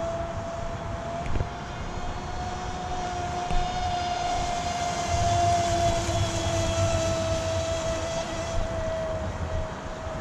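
Electric RC speedboat running at about three-quarter throttle: a steady high whine from its electric motor and propeller, the pitch climbing slightly and then easing off.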